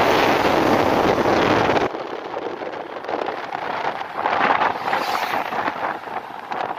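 Wind buffeting the microphone with road noise from a moving car. About two seconds in the low rumble drops away suddenly and the noise goes on quieter, swelling and easing.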